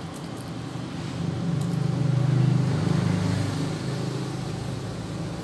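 A motor vehicle passing by: a low engine hum that swells from about a second in, peaks in the middle and fades away.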